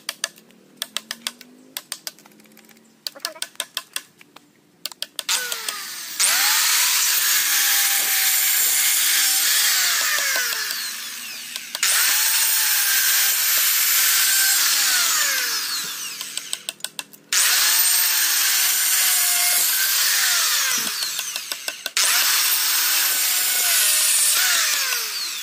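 Quick light hammer taps on wood for the first few seconds, then a handheld electric planer shaving a log in four long passes, each starting abruptly at full speed and dying away at the end.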